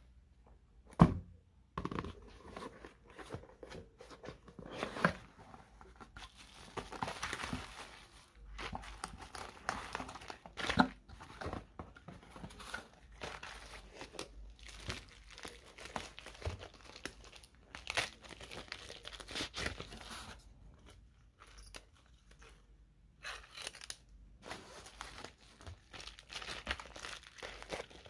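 Plastic bubble-wrap bags crinkling, rustling and tearing as they are handled and pulled open, with irregular crackles and a few louder sharp clicks.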